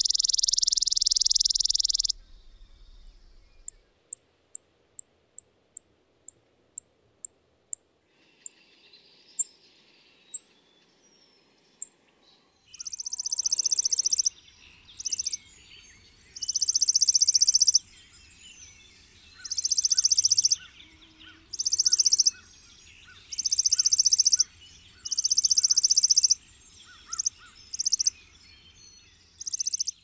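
Chipping sparrow: a high rapid trill on a steady pitch ends about two seconds in, then single high chip notes come about two a second, and from the middle on it sings a series of rapid trills, each one to one and a half seconds long, repeated every couple of seconds.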